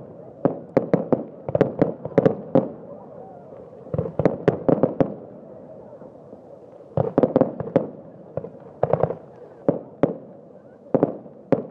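Aerial firework shells bursting overhead in rapid volleys of sharp bangs, several clusters of quick reports with short lulls between them.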